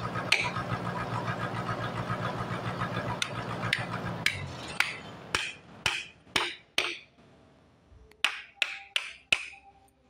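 Hammer striking a steel chisel held against a trembesi log, a series of sharp metallic blows: a few scattered ones, then two runs of four quick blows about half a second apart. A steady hum runs under the first half and stops about four and a half seconds in.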